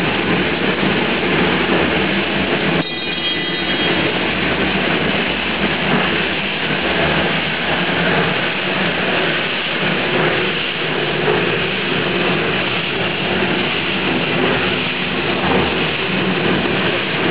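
Pet food production line machinery running: a loud, steady mechanical din that dips and changes abruptly about three seconds in.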